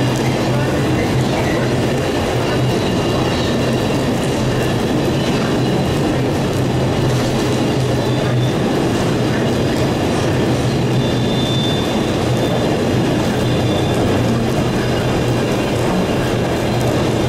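Freight train rolling past at steady speed, its wagon wheels running on the rails with a constant low rumble and a faint high squeal.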